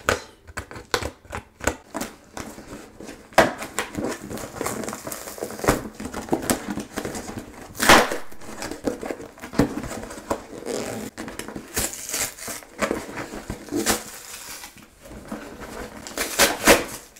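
A large cardboard shipping package being opened by hand: packaging crinkling and rustling with many sharp crackles and taps, the loudest snap about eight seconds in.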